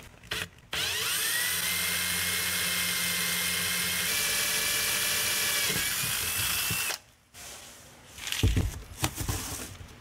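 Cordless drill spinning up and running steadily for about six seconds, drilling out a flared stud on a small control panel, then stopping abruptly. Its whine rises as it gets up to speed and steps up in pitch partway through. A few light knocks of handling follow.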